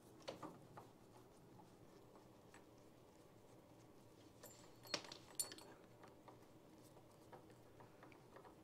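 Faint clicks and light metallic ticks of a screwdriver and small screws at the end plate of an old Bussoz foosball table, as the screws holding the plate are taken out. There are two sharper metal clicks about five seconds in.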